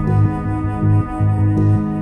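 Background music: soft ambient instrumental with sustained tones over a low pulsing bass.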